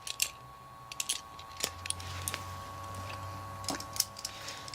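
Scattered light clicks and taps of Beyblade spinning tops being handled and set down, over a faint steady whine.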